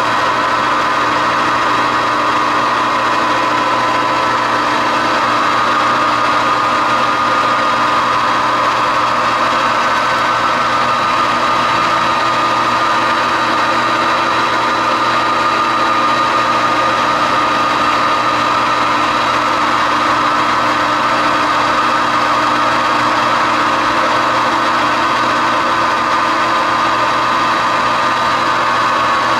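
Metal lathe running steadily with a constant mechanical whine while turning down the diameter of a screw blank.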